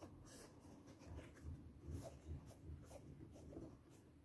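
Faint scratchy rustling of fingers rubbing and pressing a suede sneaker, with a few soft low bumps of handling near the middle.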